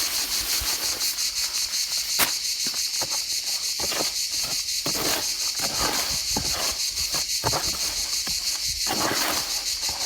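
Steady, high-pitched, rapidly pulsing insect chirring, with irregular scrapes and knocks of wet mortar being mixed by hand and a sharp click about two seconds in.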